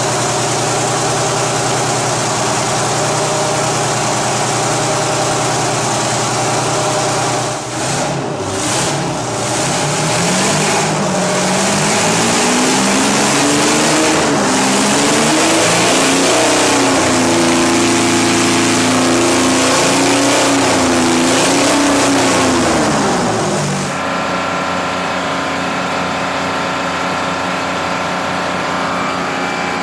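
Detroit Diesel 24V71 two-stroke V24 diesel engine running steadily, then revved up and down several times from about eight seconds in. About 24 seconds in it changes abruptly to another steady running sound.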